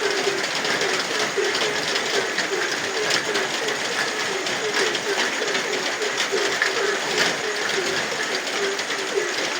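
Frogs croaking in an even, rapid series of short low calls, about three a second, over steady rain with sharp drips.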